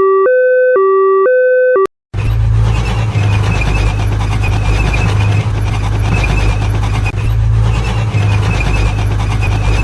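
A two-tone hi-lo ambulance siren alternates for about the first two seconds and then cuts off. After a brief gap, a tank runs with a steady heavy low engine rumble and a higher grinding clatter from its tracks over it.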